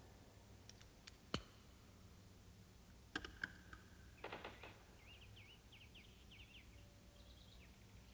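Near silence, broken by a few faint, sharp clicks and taps, with brief faint high chirping squiggles about four to five seconds in.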